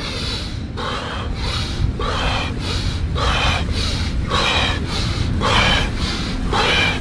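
Rapid, forceful deep breathing, in sharply through the nose and out through the mouth, about one breath a second over a steady low hum. This is the power-breathing phase of a Wim Hof-style breathwork round of about 30 breaths.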